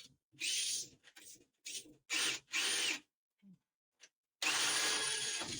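Electric drill run in short trigger bursts, spinning up and down about five times, then held for a longer run near the end.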